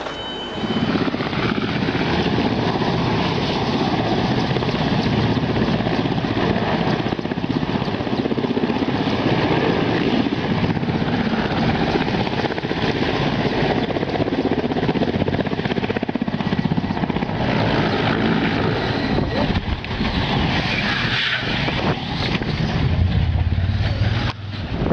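A large helicopter's turbine engines and rotor running close by: a loud, steady noise with a whine, starting abruptly about a second in, and a deeper rumble near the end.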